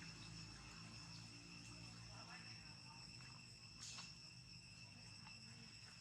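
Faint steady trilling of insects, crickets, over a low hum, with a brief click about four seconds in.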